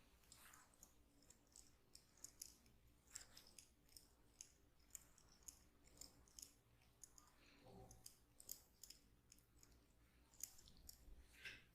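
Hands massaging skin and hair: faint, irregular, crisp clicks and crackles, several a second, with a few soft rubbing swishes.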